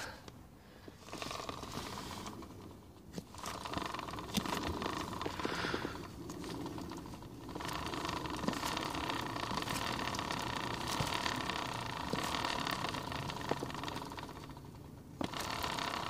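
Front wheel of a 2003 Honda XR80R spinning freely on its hub: a steady mechanical whirring with a light rattle and ticking from the hub and drum brake. It fades and picks up again several times.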